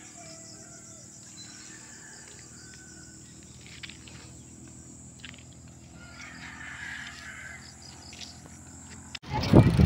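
Faint outdoor ambience with birds calling now and then: short chirps and a few brief, cawing calls over a steady high hiss.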